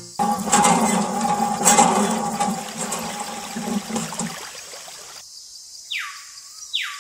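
Water streaming from a miniature toy hand pump's spout and splashing into a small steel bowl for about four seconds. Near the end come two short falling whistles.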